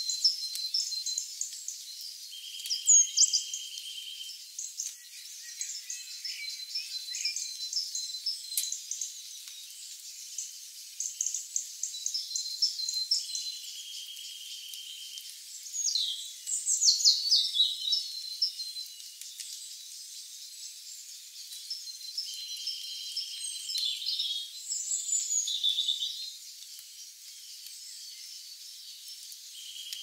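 Songbirds chirping and twittering in thin, high-pitched calls, with a few quick down-slurred notes. A steady buzzing trill, insect-like, comes in for about a second and a half several times.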